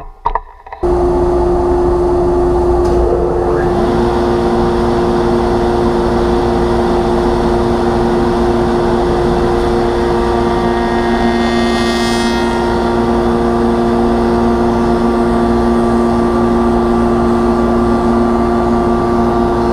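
Powermatic spindle shaper and shop dust collector switched on and running loud and steady; a few seconds in, a second tone rises as the shaper comes up to speed. A panel is then fed through the raised-panel cutter, making its edge.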